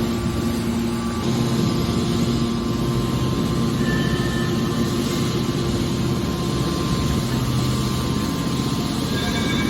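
Hydraulic aluminum can baler running: the electric motor and hydraulic pump give a steady machine hum with a shift in its low tones about a second in.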